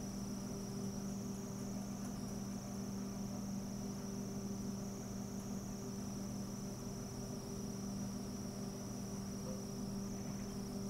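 Steady electrical hum with a constant high-pitched whine over it: background noise of the room or recording device, with no other sound.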